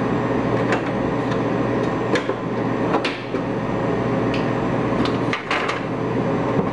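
Plastic clicks and clacks as a long plastic air-deflector louver is unclipped from a split air conditioner's indoor unit and handled. There are several sharp knocks, the loudest about three seconds in and two close together near the end, over a steady background hiss.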